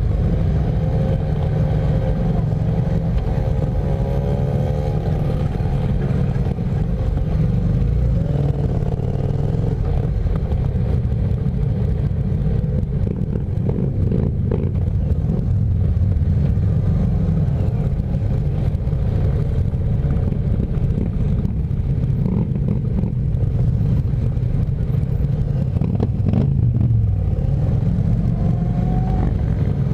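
Motorcycle engine running steadily at low road speed, with other motorcycles' engines running close by. An engine note rises and falls in the first few seconds and again near the end.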